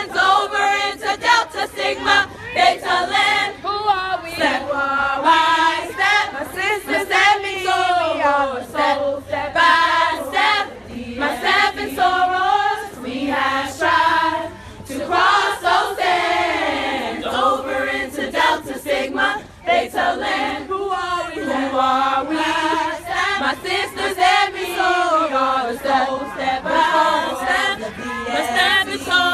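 A group of women singing together a cappella, in unison, with a chant-like delivery.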